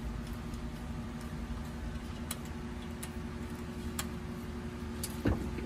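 Steel T-handle hex key working loose the compressor head bolts of a CPS TRS21 refrigerant recovery machine: a few sharp metal clicks spread through, two close together near the end, over a steady low hum.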